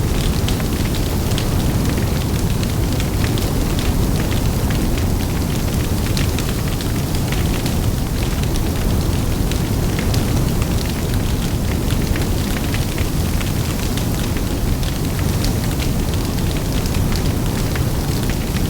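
Big fire burning, with a steady low rumble of flames and wind under constant sharp crackling of burning wood.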